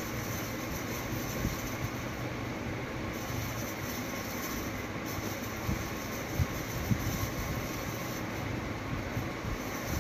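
Motorcycle riding at low speed: a steady engine hum and road noise, with a few sharp knocks from bumps in the road around the middle.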